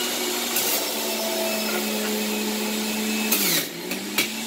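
Centrifugal juicer's motor running with a steady whine as cucumber is fed down the chute; about three and a half seconds in the pitch sags briefly under the load of the produce being pushed onto the spinning cutter, then recovers, with a sharp click near the end.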